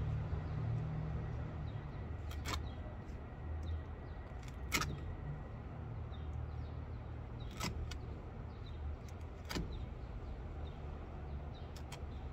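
Old upholstery fasteners snapping out of a wooden chair frame as padding and fabric are pulled away with pliers: about five sharp clicks a couple of seconds apart, over a steady low rumble.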